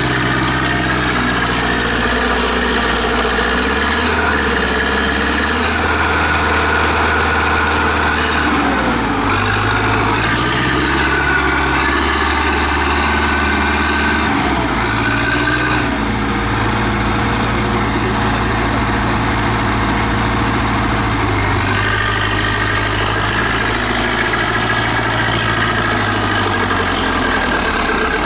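Tractor's diesel engine working hard under load in deep mud, running steadily with its note rising and falling several times as the throttle is worked.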